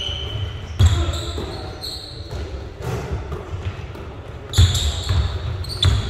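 Basketball bouncing on a gym floor, with sharp thuds about a second in and twice near the end, over voices echoing in a large hall.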